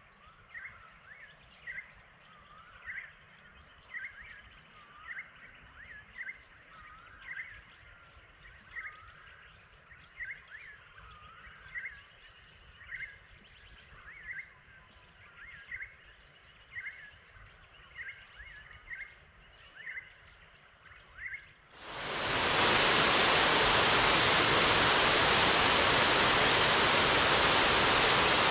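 A bird calls over and over in short chirping notes, about once a second, over a faint outdoor hiss. About 22 seconds in, this cuts abruptly to the loud, steady rush of water pouring over a dam spillway from a full, overflowing lake.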